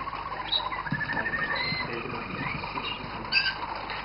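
Several roller canaries singing at once, their rolling trills and whistled glides overlapping.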